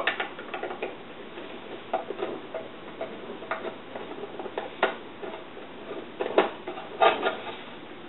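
Hand screwdriver taking out the cover screws of a Power Jack 1200 W grid-tie inverter's metal case: irregular small clicks and ticks of the tool and screws against the case.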